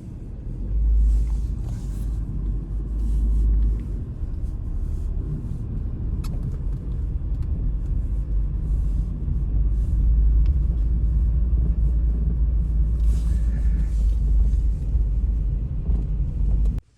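Wind buffeting the microphone in a blizzard: a loud, deep rumble that starts and cuts off abruptly.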